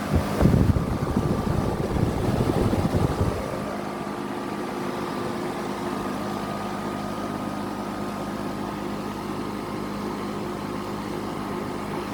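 2005 Tempstar central air conditioner's outdoor condensing unit running steadily, its compressor and condenser fan giving an even hum. A louder low rumble sits over it for the first three and a half seconds, then dies away.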